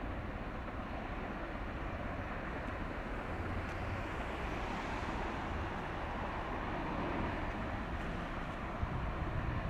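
Steady low rumble of a passing 143-metre container ship under an even outdoor rush, with no single event standing out.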